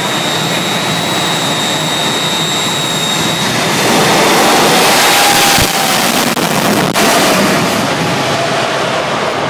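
Jet engines of jet-powered exhibition dragsters built as steam locomotives, first running with a high steady whine. About four seconds in they open up to full power and the sound turns much louder into a broad, rushing blast, which eases a little near the end.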